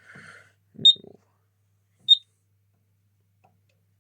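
Two short, high electronic beeps about a second apart from a Kentec Syncro fire alarm panel's buzzer. The first comes with a soft knock.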